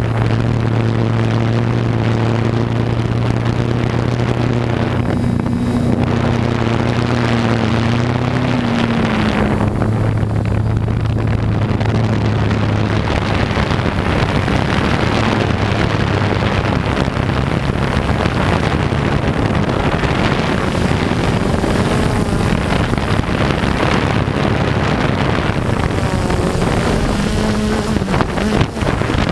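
Quadcopter's electric motors and propellers droning steadily, heard from a camera mounted on the aircraft, with a hum that wavers in pitch now and then. Wind noise on the microphone hisses underneath.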